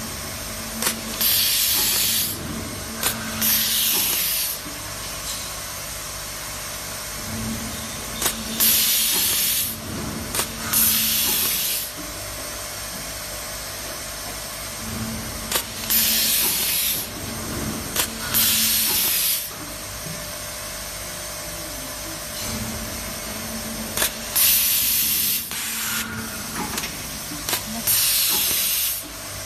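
A handheld automatic cable tie gun and its feed system tying nylon cable ties around a bundle. Each tie comes with two short bursts of air hiss, about a second each, plus sharp clicks. The cycle repeats four times, with a low machine hum between ties.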